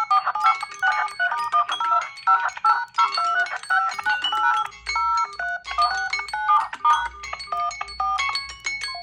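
Samsung smartphone alert melody: a quick, looping tune of short, bright chiming notes. A low rumble runs under the tune in its second half.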